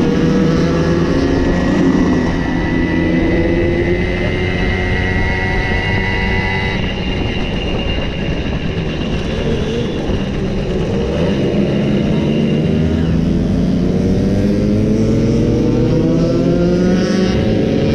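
Simson two-stroke moped engines running under way, their pitch holding and shifting, then climbing steadily over the last few seconds as they accelerate.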